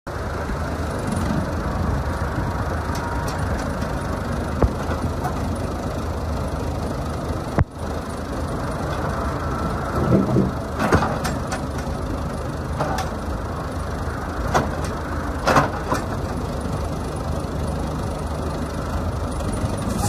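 Case 580C loader backhoe's engine idling steadily, with a few short knocks and clanks, the loudest about ten and fifteen seconds in.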